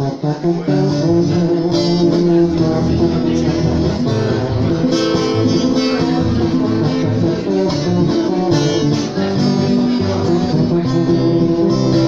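Acoustic guitar strummed and picked on its own as an instrumental break between sung verses.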